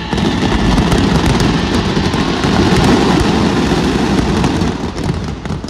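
Fireworks display barrage: many shells bursting together in a dense, continuous crackling and rumbling, dying down near the end.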